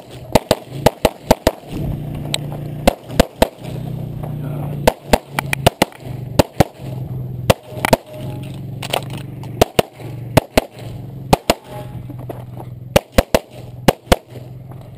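Semi-automatic pistol firing rapid strings of shots, mostly in quick pairs, with short pauses between strings as targets change.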